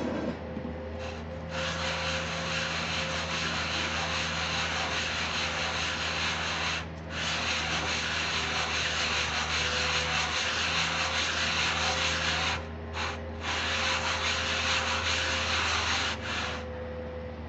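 Hydraulic gear pump housing being lapped face-down on a flat abrasive plate to true its sealing face: a continuous gritty scraping as it is rubbed back and forth, with short breaks about seven and about thirteen seconds in.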